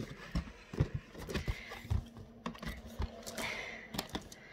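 Hands handling a cardboard shoebox and the items inside it: irregular light knocks, taps and rustles.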